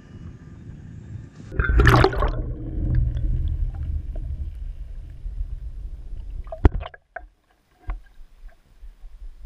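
A loud splash about two seconds in as a hooked fish thrashes at the surface beside the boat, followed by a muffled low rumble of churning water. A sharp knock comes just before the rumble cuts off suddenly a couple of seconds before the end, leaving a few faint knocks.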